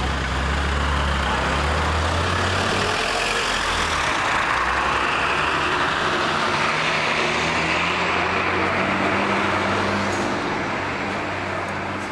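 Close-range street traffic: motor-vehicle engines running, including a bus, over a steady rush of road noise. A low engine hum is strongest in the first few seconds, then fades under the rush.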